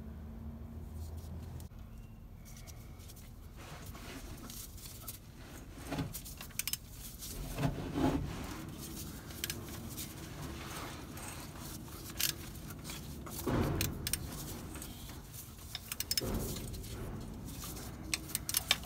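Scattered metallic clicks, clinks and knocks as a stretch-fit drive belt is worked onto a GM vacuum pump pulley with a clip-on belt installer tool, the pulley turned so the belt rolls on. The louder handling clatters come in clusters about six, eight, thirteen and sixteen seconds in.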